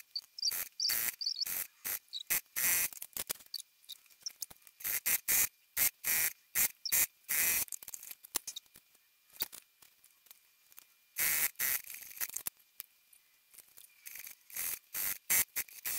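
Domestic electric sewing machine stitching in many short stop-start bursts, most under a second, with a quieter pause about halfway through.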